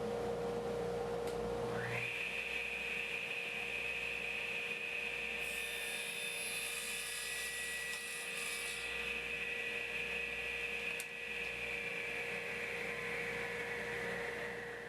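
A machine running with a steady high-pitched whine over a lower hum; the whine steps up in pitch about two seconds in and then holds, and a hiss joins it for a few seconds in the middle.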